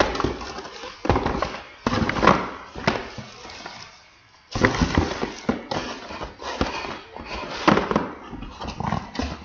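Plastic wrappers and trash being crinkled and rustled by hand, in irregular crackling spells with a short lull about four seconds in.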